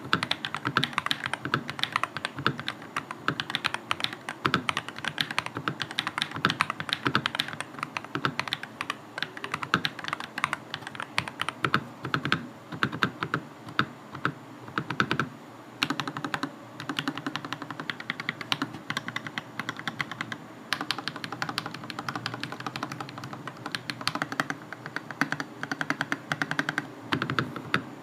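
Custom TM680 mechanical keyboard with lubed Akko CS Rose Red and Radiant Red linear switches, foam and tape inside the case, being typed on quickly. It gives a dense run of key clacks, with a short pause about fifteen seconds in.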